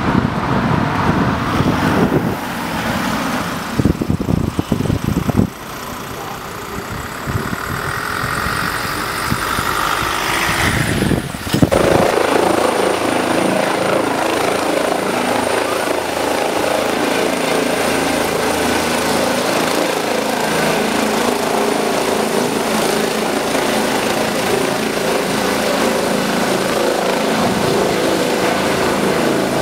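Wind buffeting the microphone, then, after a sudden cut about twelve seconds in, a Eurocopter EC135 trauma helicopter running steadily with a high turbine whine over its rotor noise as it lifts off and passes overhead.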